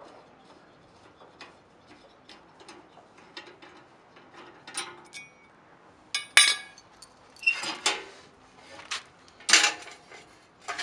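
Homemade folding sheet-steel barbecue grill being opened up: light metal ticks, then from about halfway several loud sharp metal clanks and rattles as the hinged steel walls and strips are handled.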